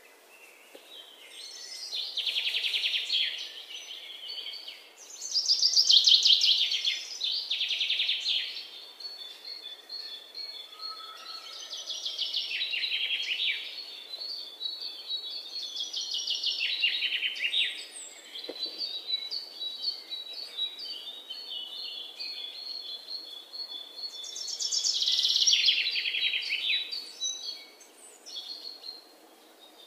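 Birds singing: several loud bursts of fast, high trills, with a string of quick repeated high chirps between them.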